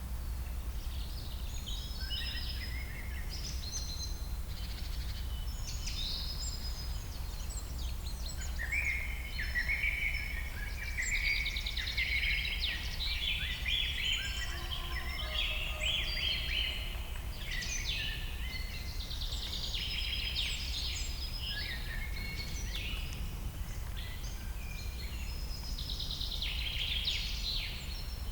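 Many birds chirping and calling over one another in short, dense trills, over a steady low background rumble.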